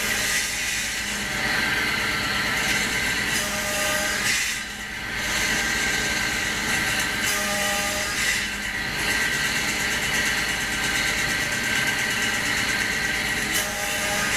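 A woodworking power tool running steadily, dipping briefly about a third of the way in.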